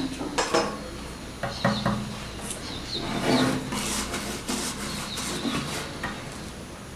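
Flat paintbrush scratching in repeated strokes as it spreads shellac over a kraft-paper-covered MDF box, after a few light knocks as the box and brush are handled in the first two seconds.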